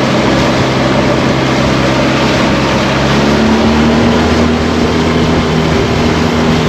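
Motorboat engine running at speed, with a steady haze of wind and water noise. About three seconds in, the engine tones shift and a new steady tone joins them.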